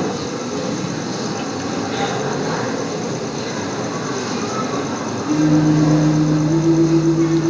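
Steady hiss of an old recording played back over speakers, then about five seconds in a low male voice begins a chant of long held notes. The notes step upward in pitch, the opening of a Balinese gamelan composition.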